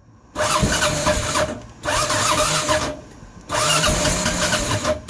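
Kawasaki KLR650 Tengai's single-cylinder engine being turned over by its electric starter in three bursts of about a second each with short pauses between, trying to catch but not yet running.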